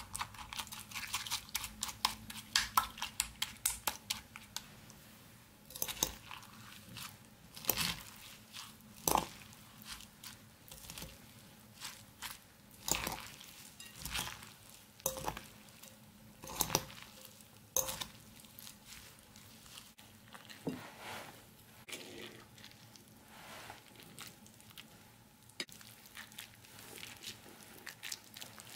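A metal fork stirring shredded raw cabbage and carrot in a ceramic bowl: crisp crunching and rustling of the vegetables with sharp clinks of the fork against the bowl. The strokes come quickly at first, then as separate strikes, and grow softer near the end as the mixture is squeezed by hand.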